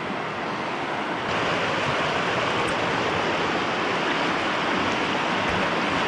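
Fast mountain stream rushing over rocks, a steady noise of running water that gets louder about a second in.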